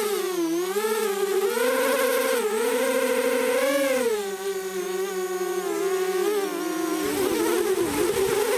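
Mini quadcopter's electric motors and propellers buzzing, heard up close from the camera on its nose; the pitch swoops up and down as the throttle changes, rising highest a little before halfway and dipping near the end. A low rumble joins it near the end.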